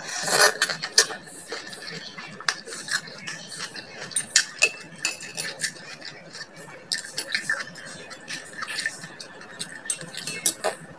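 Close-up eating sounds: slurping and chewing a soupy dish of kangkong in coconut milk, with chopsticks clicking against a ceramic bowl. There is a louder slurp right at the start, then scattered small clicks and mouth sounds.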